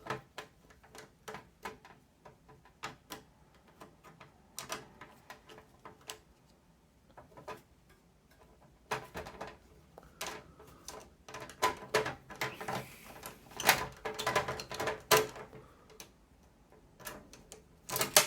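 Irregular small clicks, taps and rattles of hands working on a PC case and its fans, busier and louder in the second half.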